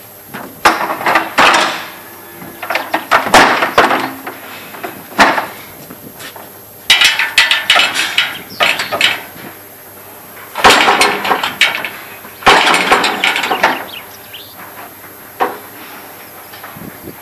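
Steel gates and hurdles of a livestock truck's loading ramp rattling and clanging as they are handled, in repeated bursts of sharp metal knocks.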